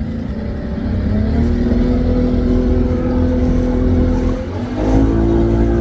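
Motorboat engine pulling away under throttle, its pitch climbing about a second in and again near the end, over a heavy low rumble of wind on the microphone.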